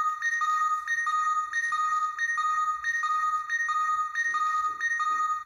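Ultraman Dyna Super Key toy playing Ultraman's color timer warning sound through its small speaker: an electronic two-tone beep alternating between a lower and a higher pitch, about one and a half cycles a second, cutting off abruptly at the end. The sound signals Ultraman running out of energy.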